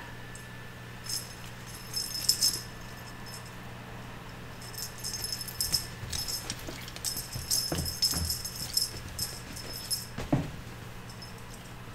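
A small bell jingling in three short spells as the kittens bat and chase their toy, with soft thumps of paws landing, the clearest as a kitten leaps about ten seconds in.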